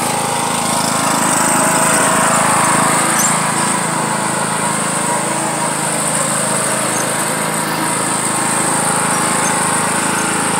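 Riding lawn tractor engine running steadily as the tractor drives through mud and onto the grass.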